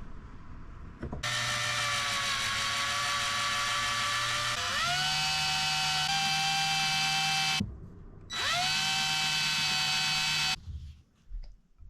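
Power drill running in two runs: the first starts about a second in, speeds up partway through and stops about seven and a half seconds in; the second spins up quickly and runs steadily until shortly before the end.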